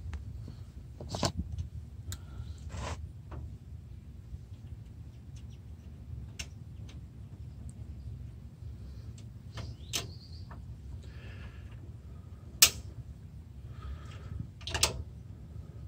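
Scattered sharp metal clicks and clinks of pliers working a steel lift cable and its fitting against a steel trailer gate frame, over a low steady background rumble. The sharpest click comes past the middle.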